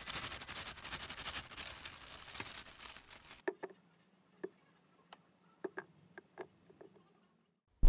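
Crinkling of a plastic sheet with a dense fine rustle as cocoa powder and cocoa-dusted chocolates are tipped into a glass jar. The rustle stops a little past halfway, leaving a few faint scattered ticks.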